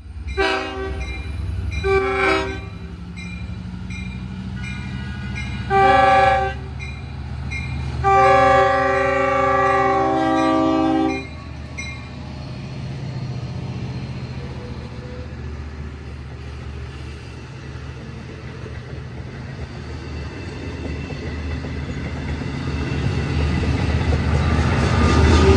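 Long Island Rail Road diesel locomotive horn sounding four blasts, the last and longest about three seconds, over a bell ringing about twice a second. The low rumble of the diesel locomotives runs underneath and grows louder toward the end as the train comes closer.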